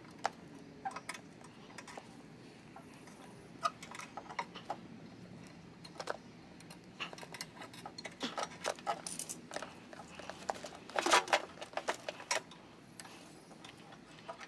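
Light metallic clicks and taps as a lawnmower carburetor and its small linkage spring are handled and fitted against the engine. A quick flurry of louder clicks comes about three-quarters of the way through.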